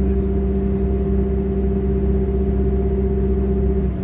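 Class 180 diesel multiple unit's underfloor diesel engine and transmission running, heard inside the passenger saloon as a steady drone with a held hum. Near the end the deep part of the drone drops away and one of the tones stops.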